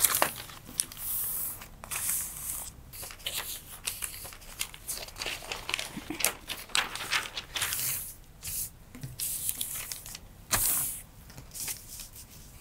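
Graph-paper pattern pieces rustling and sliding on a cutting mat as they are handled and laid out, in irregular short swishes and crinkles.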